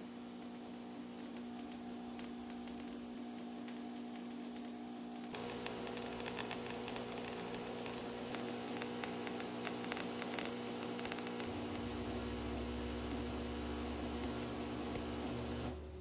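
Stick-welding arc crackling and sizzling as it lays a bead on the steel seam of a homemade gas tank, over a steady electrical hum. The crackle grows denser and louder about five seconds in, and the arc cuts off just before the end.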